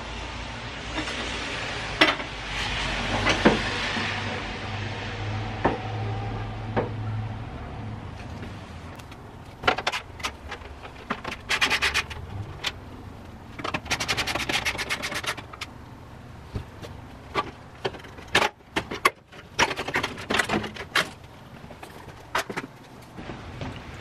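Hand tools working on a truck engine: sharp metal clicks and clinks, with two short runs of rapid, even ratchet-wrench clicking in the middle. Steady traffic noise with a low hum fills the first several seconds.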